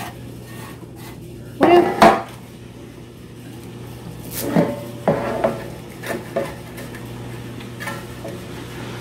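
Metal loaf pan handled on a countertop and scraped out with a silicone spatula, working loose stuck cinnamon-sugar: several short scrapes and clunks in the second half.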